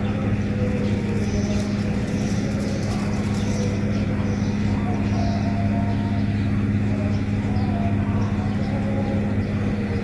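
A steady low mechanical hum, unchanging throughout, with faint short wavering notes above it now and then.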